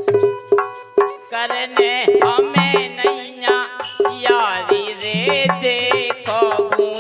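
Bundeli folk music: a harmonium and a hand drum keep a quick, steady beat of about three strokes a second. About a second and a half in, a man starts singing a wavering, ornamented melody over them.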